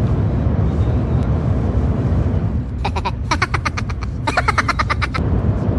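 Steady low rumble of a high-speed train heard from inside the passenger cabin. About three seconds in, a rapid run of short pitched pulses sounds for roughly two seconds, with a brief break in the middle.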